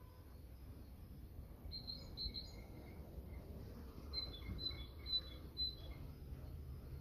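A small bird chirping outdoors: a short run of high chirps about two seconds in, then a longer run of about six chirps after four seconds, over a faint low rumble.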